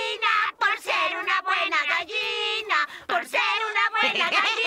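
High-pitched cartoon voices vocalizing in a sing-song way without words, in short phrases with a few held notes, over the cartoon's music.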